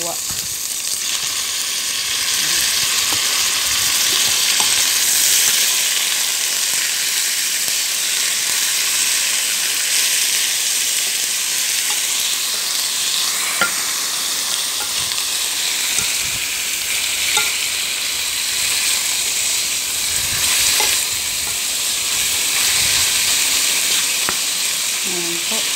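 Raw chicken pieces sizzling in hot oil with sliced onion and garlic as they are stirred, a steady frying hiss with a few sharp clicks. The chicken is being fried until it changes colour.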